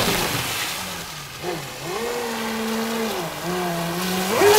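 The water-cooled brushless electric motor of a HydroPro Inception deep-vee RC racing boat, whining as it runs across the water. The whine falls as the throttle eases about a second in, holds, drops again past the three-second mark, then climbs sharply and gets louder near the end.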